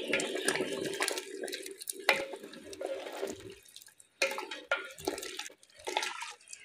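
Water running for about three and a half seconds, then a few sharp knocks scattered through the rest.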